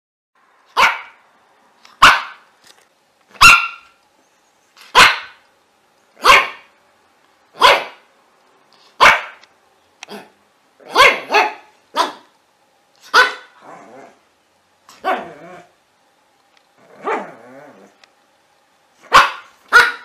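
Pinscher barking: single sharp barks about every second and a half, then a few quick pairs. Near the end come two longer, softer, lower barks, then two quick sharp barks.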